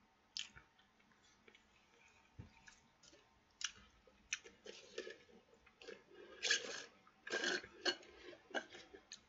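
Mouth sounds of eating and drinking: quiet chewing, then sipping a drink through a straw, with swallows. The louder sounds come in the second half.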